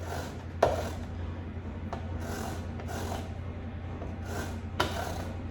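A lime rubbed over a hand zester: a string of irregular rasping strokes of the peel on the grating blades, with a sharper knock about half a second in, over a steady low hum.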